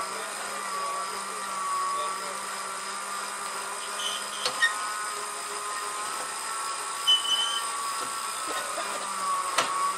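SUV stuck in mud, driven with a steady, slightly wavering high whine from its spinning wheels and drivetrain. A few short clicks come about halfway through and near the end.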